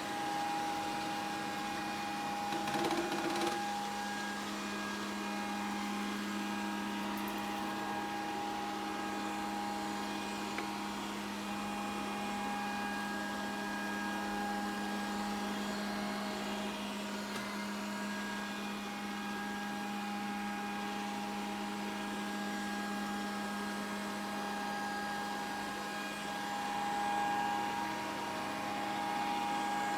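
Grundig VCR 2131 robot vacuum running steadily: an even motor hum with a steady high whine, briefly louder about three seconds in and again near the end.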